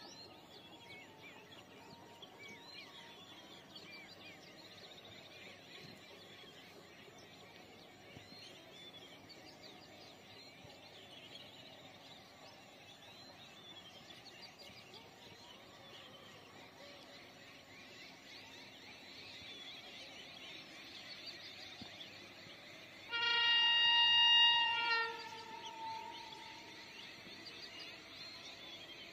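Birds chirping over a steady outdoor background, then late on a train horn sounds once, loud, for about two seconds, as a train approaches, before trailing off.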